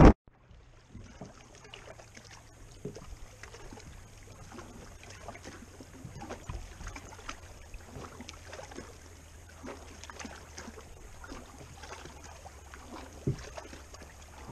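A loud rush of wind on the microphone cuts off at the very start. Then come quiet sounds from a bass boat sitting still on the water: a low steady hum, water lapping softly against the hull with small ticks and taps, and one sharper knock near the end.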